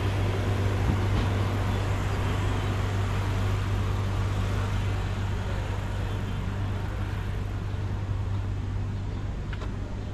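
A vehicle running steadily: a constant low hum under an even rushing noise, the higher part of which thins a little toward the end.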